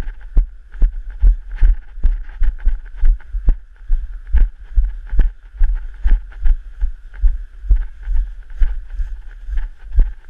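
A person's footsteps at a brisk walk over grass and snow-patched ground, heard as about two dull thumps a second through a body-worn camera, with a faint steady hiss behind them.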